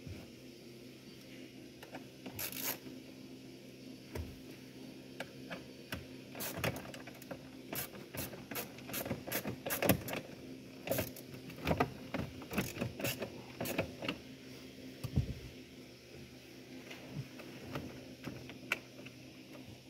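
Irregular sharp clicks and rattles of hands and a small hand tool working on wiring and plastic trim under a car's steering column, with a dull thud about fifteen seconds in, over a steady low hum.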